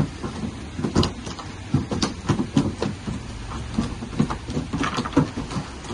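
Water splashing and sloshing in a shallow fish tank as a dip net is swept through it and a wader moves about, catching tilapia: irregular splashes and slaps over a steady rush of water.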